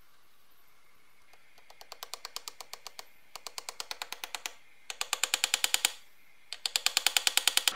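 Small hammer tapping a metal nameplate onto a money-checker scale's metal case, driving it home: rapid light taps, about eight to ten a second, in four runs, each run louder than the last.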